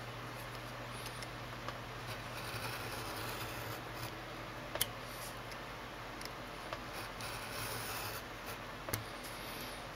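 Craft knife blade cutting through two stacked sheets of Bristol board: a faint, scratchy scoring sound over a steady low hum, with a couple of light clicks about five and nine seconds in.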